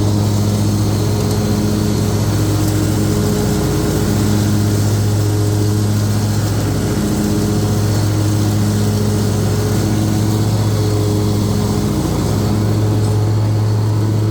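Gravely ZT 60HD zero-turn mower's 24 hp Kawasaki engine running steadily with the blades engaged while it mows, a constant engine drone that wavers briefly a few times.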